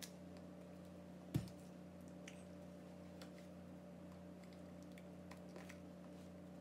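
Quiet room with a steady low hum, faint clicks and taps from hands moving while signing, and one soft thump about a second and a half in.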